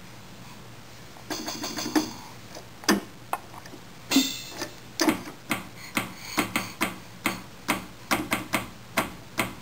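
A baby's hands striking the keys of a keyboard, a series of sharp key hits that begin about a second in, irregular at first and then about two a second.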